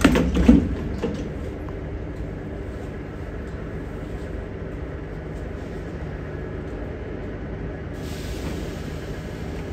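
Ezh3-series metro train standing at the platform, its onboard equipment giving a steady hum, with a brief loud burst right at the start. A faint hiss comes in near the end.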